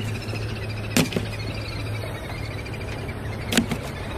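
Small fish being tossed aside as a catch is sorted, landing with short knocks and slaps: two in quick succession about a second in and another near the end. A steady low hum and a faint high twittering sit under them.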